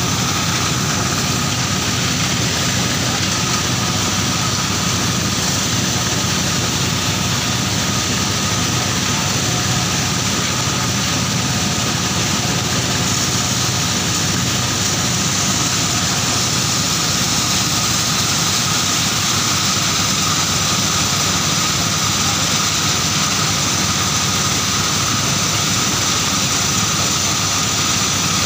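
Corn milling machinery running steadily: a constant engine drone with a thin steady whine over it.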